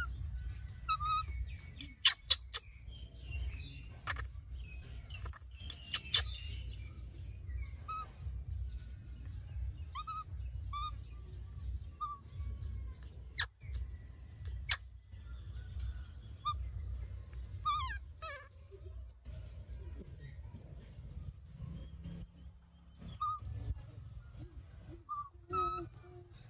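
Birds chirping in short, scattered calls, with a few sharp clicks, the loudest about two seconds in and again about six seconds in.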